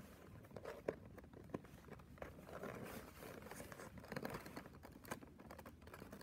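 Faint handling noise of small cardboard toy boxes being turned over and fingered, with scattered light taps and scratches.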